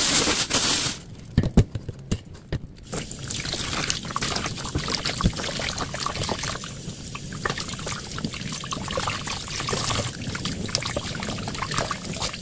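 Tap water running steadily onto a whole mackerel and into a stainless steel bowl in a sink as hands rinse and rub the fish, with small splashes and clicks. A plastic bag rustles for about the first second, and a few knocks follow before the water settles in.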